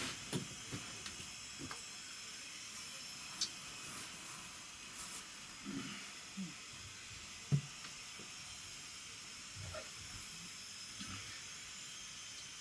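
Steady low hiss with scattered soft rustles and small knocks as bags and belongings are handled. The loudest is a single dull knock about halfway through.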